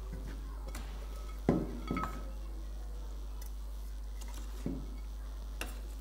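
A steel ladle clinking against the side of a large stainless steel bowl while stirring raw mango pieces into oily pickle masala: a sharp clink about one and a half seconds in, another half a second later, then two lighter ones near the end, over a steady low hum.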